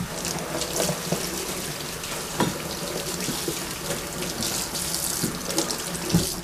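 Kitchen tap running steadily into a sink while courgettes are rinsed under it, with a few light knocks as they are handled. The water cuts off suddenly at the end.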